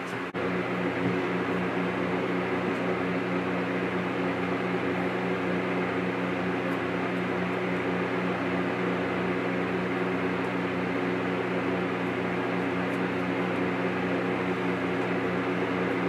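A steady machine hum that starts suddenly just after a brief click at the very start and holds at an even level.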